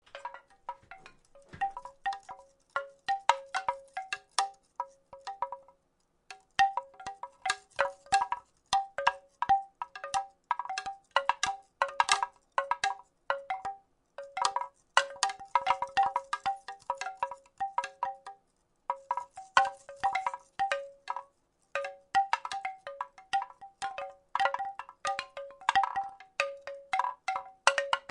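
Wooden rattle shaken in irregular clusters of clacks, each clack ringing briefly at a few fixed hollow pitches, with short pauses twice.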